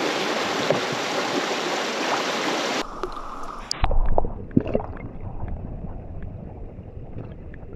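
Fast creek current rushing steadily over a shallow riffle. About three seconds in it gives way to the muffled low rumble of the creek heard from underwater, with a few small clicks and bubbling.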